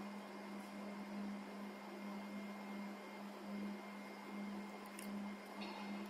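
Faint, steady low hum from a color sorting machine, wavering slightly, with a few faint clicks about five seconds in.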